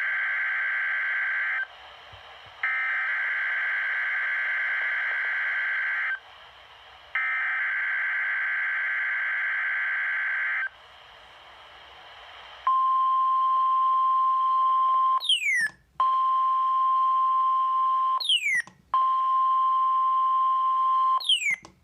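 NOAA Weather Radio test signal. Three buzzing SAME digital header bursts of about three and a half seconds each, a second apart, are followed after a short pause by the steady high 1050 Hz warning alarm tone. The alarm tone is broken three times by brief dropouts with quick falling chirps.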